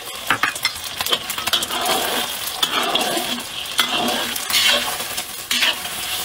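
Beaten eggs sizzling in hot oil in a pan while being stir-fried and scrambled with a spatula, which clicks and scrapes against the pan again and again over the frying hiss.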